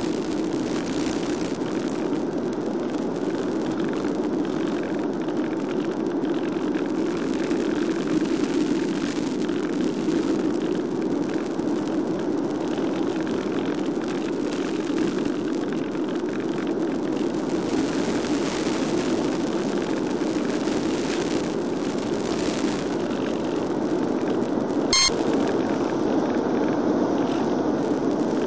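Steady rushing wind noise over an FPV model plane's airframe and onboard microphone, with no motor sound: the plane is gliding with the throttle at zero. A single short sharp click comes near the end.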